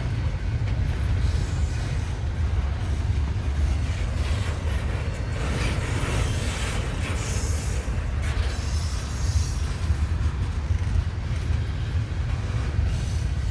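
Train cars rolling past on the rails with a steady low rumble, and faint high-pitched wheel squeals a few times.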